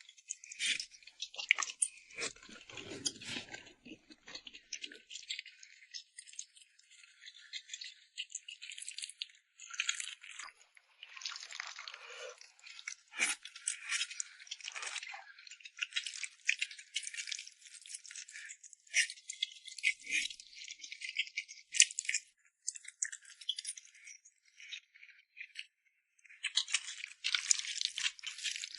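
Dense, irregular crackling and rattling handling noise, with short pauses now and then.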